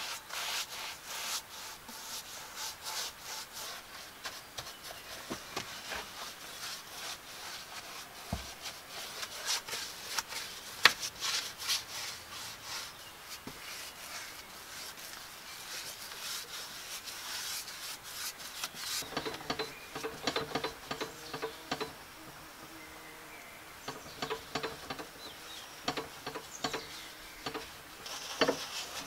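A bristle paintbrush stroked back and forth over planed wooden boards while spreading a wood finish: quick, scratchy rubbing strokes, with one sharp tap about eleven seconds in. In the last third the strokes thin out to scattered scraping over a faint low drone.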